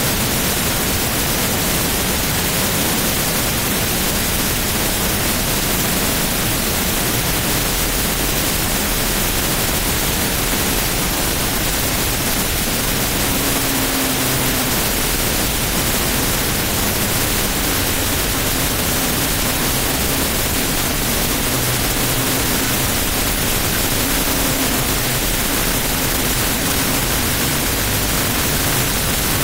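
The jet truck's twin jet engines running steadily, a loud, even rushing noise with no rise or fall. A faint wavering drone comes and goes over it from about halfway through.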